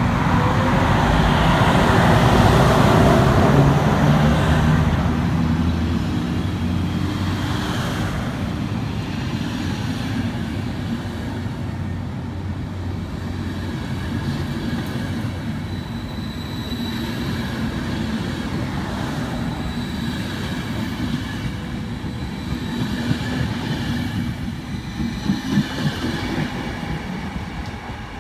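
Electric locomotive hauling a long train of Intercity coaches past at close range. Its run-by is loudest in the first few seconds, then the coaches follow with a steady rumble of wheels on rail. A quick series of clicks sounds near the end as the wheels cross rail joints, and the train fades as it moves away.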